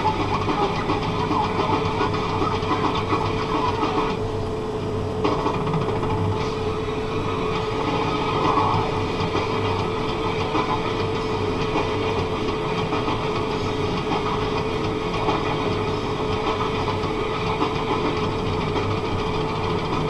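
Valtra N91 tractor's diesel engine running steadily under load while pulling a Kverneland plough, heard from inside the cab, with a steady tone over the engine hum.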